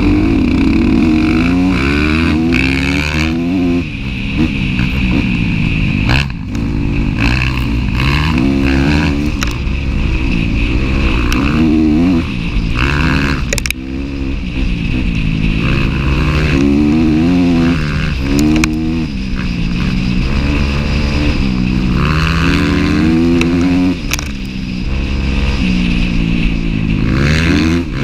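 Dirt bike engine, close to a helmet-mounted microphone, revving up and dropping back again and again as the rider works the throttle and gears.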